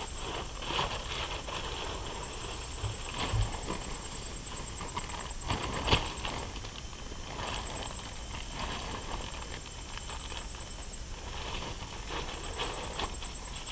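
Nylon tent flysheet rustling and flapping as it is lifted off the tent and handled, with footsteps on grass, a dull thump about three seconds in and a sharp knock about six seconds in. A high, rapid insect trill starts and stops in the background.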